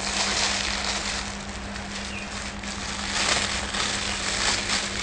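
Crinkling and rustling of the clear plastic sleeves around bunches of artificial flowers as they are handled and lifted, coming in irregular swells. A steady low hum runs underneath.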